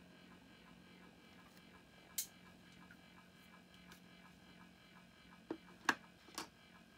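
A faint steady hum with a few sharp clicks: one about two seconds in, then three in quick succession near the end. The clicks are handling noise from the specimen box or camera being moved.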